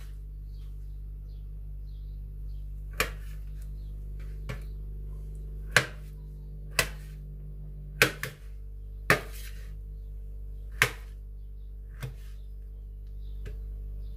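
A kitchen knife chops kiwi fruit on a plate, and the blade knocks sharply on the plate about ten times at uneven intervals, roughly once a second. A steady low hum runs underneath.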